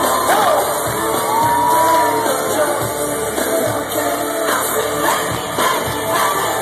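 Live pop song with a sung vocal played over an arena's sound system, with fans shouting and cheering along. Heard through a handheld camera's microphone in the crowd, echoing in the large hall.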